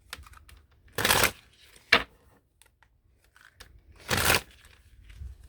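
Tarot cards being shuffled and handled: two short rushes of card noise about three seconds apart, with a single sharp snap of a card about two seconds in.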